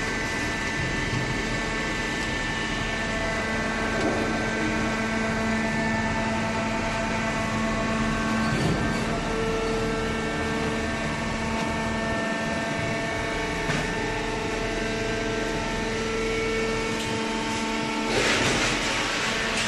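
Hydraulic baling press running: a steady hum of several held tones from its motor and pump, with a rush of noise joining in near the end.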